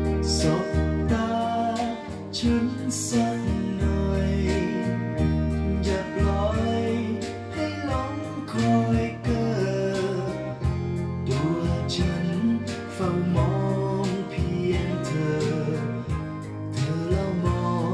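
Recorded Thai pop song playing, with sustained bass notes under a steady drum beat.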